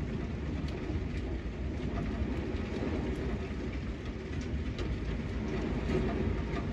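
Strong thunderstorm wind with rain: a steady low rush of wind, with a few sharp ticks scattered through it.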